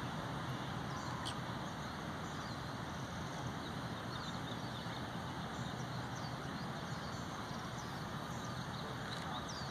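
Steady outdoor background noise with scattered faint bird chirps.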